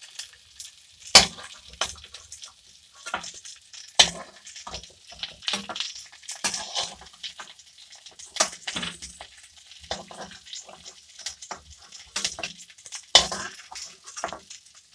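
Metal spatula scraping and knocking against a wok as fried cauliflower florets are scooped out onto a plate, over a low sizzle of oil. The knocks come irregularly, the loudest about a second in, at about four seconds, eight and a half seconds and thirteen seconds.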